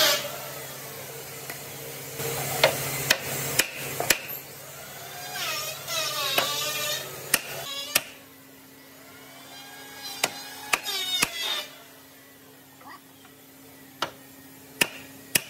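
Workshop noise: scattered sharp knocks, like hard wood being struck, come over a steady hum. Twice there are bursts of pitched sound that bend up and down.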